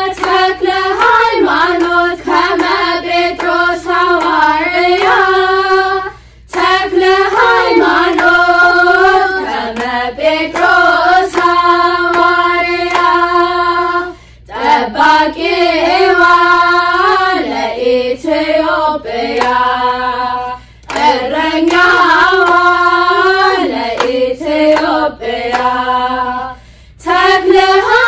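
Young women's choir singing an Ethiopian Orthodox mezmur in unison with no instruments, in long phrases broken by short pauses about every six seconds.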